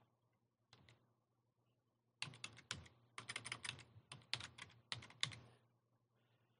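Computer keyboard typing: a quick run of keystrokes that starts about two seconds in and lasts about three seconds, as a word is typed into a web form.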